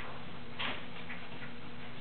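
Irregular light ticks and clicks over a steady low hum.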